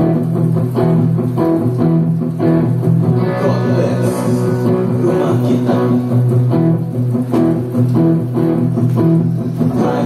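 Guitar-led music with plucked notes over a steady bass line, played loud.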